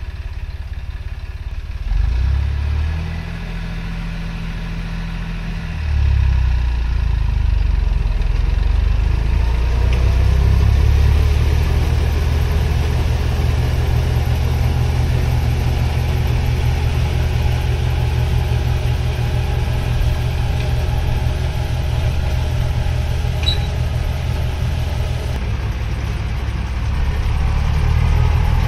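Massey Ferguson 9500 tractor engine driving a straw reaper in the field. The engine note picks up about two seconds in and again at about six seconds, then runs steadily under load with the reaper's machinery whirring over it.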